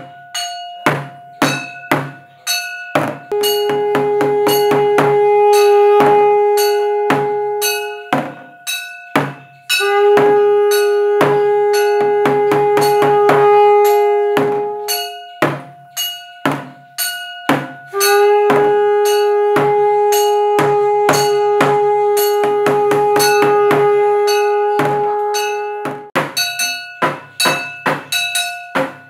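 A conch shell blown in three long blasts, each held on one steady pitch, the last the longest. Under and between the blasts, a bell is struck rapidly and keeps ringing, at about four or five strokes a second.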